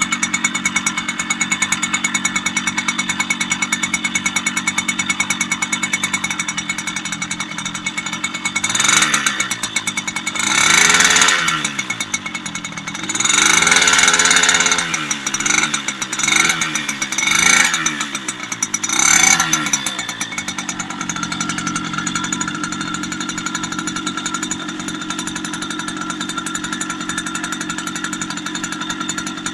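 Soviet D-8 two-stroke bicycle engine idling steadily. About a third of the way in it is revved several times in quick succession, each rev rising and falling in pitch, before it settles back to a steady idle.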